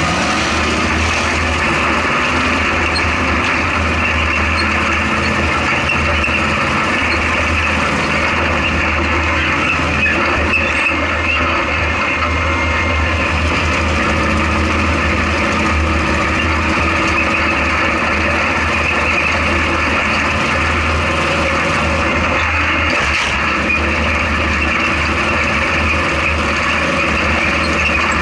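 Off-road race vehicle's engine running under way, heard from inside the open, caged cab: a loud, steady deep drone mixed with broad driving noise.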